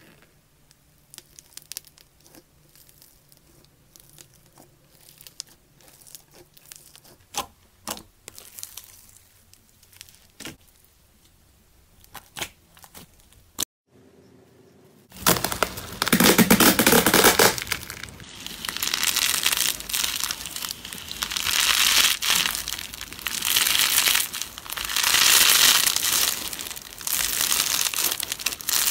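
Foam beads crackling faintly under pressing fingers, in scattered small clicks. About 15 s in this gives way to loud, dense crinkling and crunching that swells and eases in waves as foil-wrapped slime is crushed with a metal masher and crunchy slime is squeezed in the hands.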